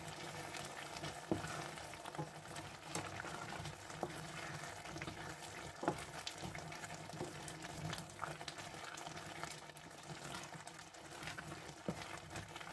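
Thick tomato and eggplant sauce simmering in a pan, with a wooden spoon stirring and scraping through it and many small pops and knocks scattered throughout. The sauce has cooked down enough to nearly catch on the bottom.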